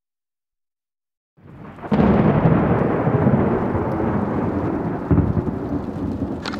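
Heavy rain with a deep rumble of thunder, fading in about a second and a half in and quickly becoming loud and steady. A sharp click near the end.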